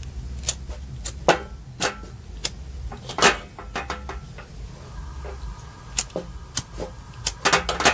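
Sharp, irregular clicks and knocks, about a dozen and bunched near the end, as a gas stove running on biogas is being lit and its burner is just catching, over a low steady hum.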